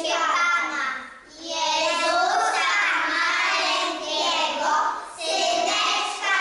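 Young children singing together unaccompanied, a Christmas carol in Polish. The singing comes in phrases, with short breaks about a second in and again just after five seconds.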